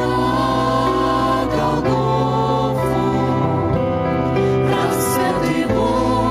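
Christian song with singing over a steady, sustained instrumental accompaniment.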